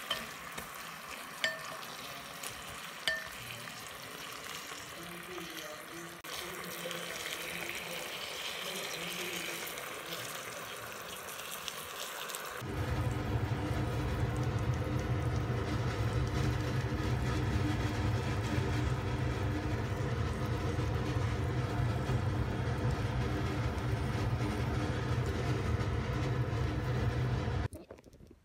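Pork and sticky char siu sauce sizzling in a rice cooker's inner pot, with two light taps of wooden chopsticks on the pot in the first few seconds. About thirteen seconds in, the sizzle gives way abruptly to a steady low drone with a hum in it, which cuts off near the end.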